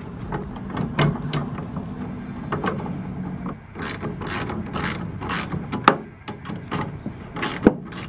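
A run of sharp metallic clicks and clacks as a metal bracket is worked by hand against the truck bed's tonneau cover rail. The clicks come about every half second around the middle.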